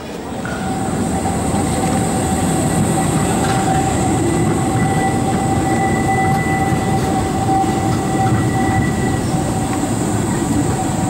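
Škoda 15T low-floor articulated tram rolling past close by. The rumble of its wheels on the rails swells over the first second or so and then holds, with a steady high-pitched wheel squeal through most of the pass.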